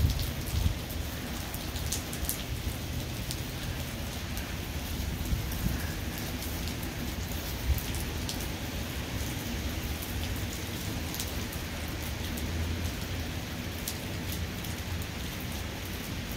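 Steady heavy rain falling, with scattered sharp clicks of single drops striking close by and a low rumble underneath.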